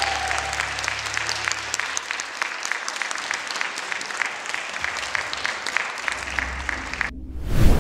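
Audience applauding, a dense patter of clapping, with the last low note of the performance music fading out in the first two seconds. About seven seconds in the applause cuts off abruptly and an electronic whoosh swells into a loud, deep hit.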